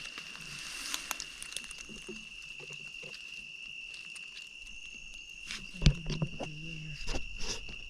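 An insect trilling on one steady high pitch, with scattered snaps and rustles of brush underfoot and a louder knock about six seconds in.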